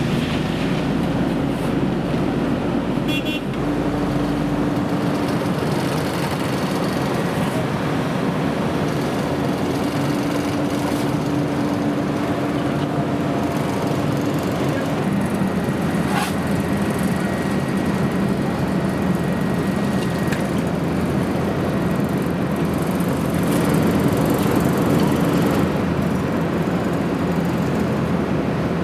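A motor vehicle engine running steadily over road noise, its pitch shifting a little about five seconds in and again about fifteen seconds in.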